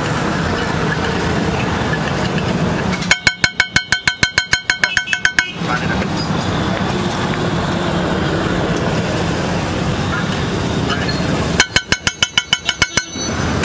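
Steel masher rapidly chopping egg mixture against a flat iron griddle, making two runs of quick ringing metal clanks at about six a second. The first, about three seconds in, lasts about two and a half seconds; the second, near the end, lasts about a second and a half. Steady street traffic noise continues underneath.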